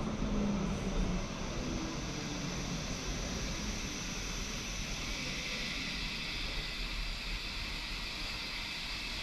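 Polybahn cable-hauled funicular car running on its rails, a steady rumble and hiss, as it pulls into the upper station. The hiss grows brighter from about halfway through.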